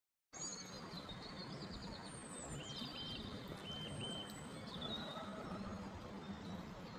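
Shallow river flowing over stones, a steady rush of water, with small birds singing over it: quick high trills and a few short repeated whistles in the first half.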